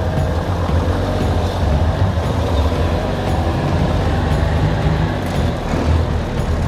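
Unimog truck driving, its 5.7-litre turbo-diesel inline six running steadily with a loud low rumble.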